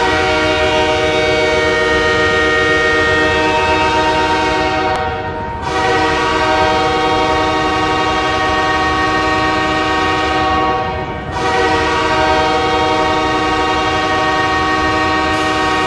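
Ice hockey goal horn sounding three long blasts of about five seconds each, a chord of several steady tones, with a short dip between blasts.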